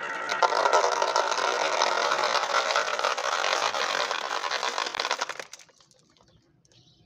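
Many glass marbles rolling and clattering down the wavy grooves of a wooden marble slope and spilling into a plastic toy jeep: a dense rattle of clicks that stops about five and a half seconds in, once the tracks have run empty.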